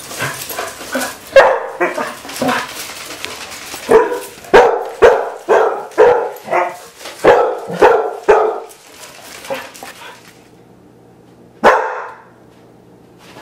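Basset hounds barking at a robot toy dog: a quick run of about ten loud barks over the first eight or nine seconds, then a single bark near the end.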